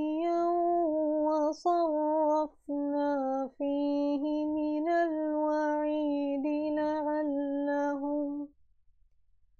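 A woman reciting the Quran in a slow, melodic chant, with long held notes and brief pauses for breath. Her voice stops about eight and a half seconds in, leaving near silence.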